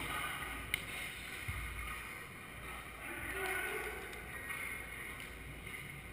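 Echoing hall ambience with faint, distant voices of volleyball players. A single sharp smack comes about three quarters of a second in: a hand striking the volleyball.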